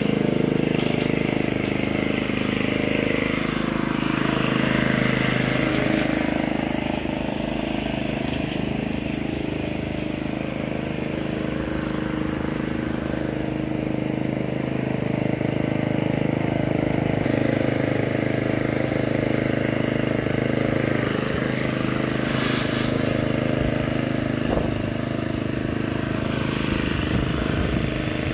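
Petrol walk-behind rotary lawn mower engine running steadily while cutting grass.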